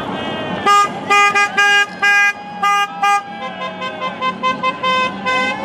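Horns on decorated golf carts honking as they pass: about six loud, short toots in the first three seconds, then a quicker run of shorter, fainter toots.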